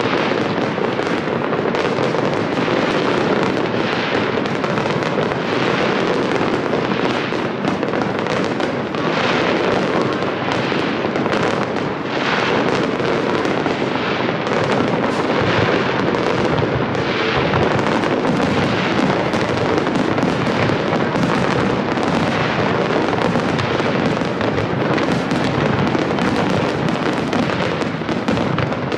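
Aerial fireworks going off in a dense, continuous barrage of overlapping bangs and crackle.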